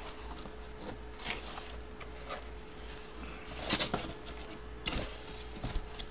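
Cardboard scraping and rustling as a large flat cardboard box is handled and opened, in several short bursts, the loudest a little before the middle.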